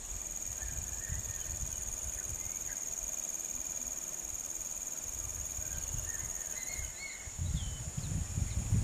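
Steady high-pitched drone of insects, with a few short bird chirps and low rumbling on the microphone that grows louder near the end.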